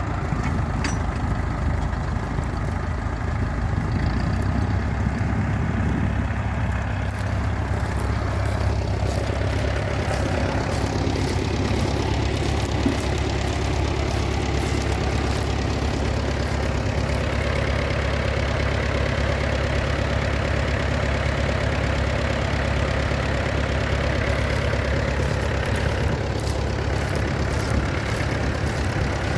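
Tractor engine idling steadily, a low even running sound that holds throughout.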